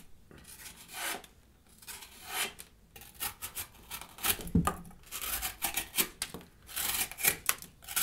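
The small liner-lock blade of a Gerber Armbar Drive multi-tool slicing through corrugated cardboard in quick, short sawing strokes, dense from about three seconds in. Before that come a few fainter cuts into a sheet of paper.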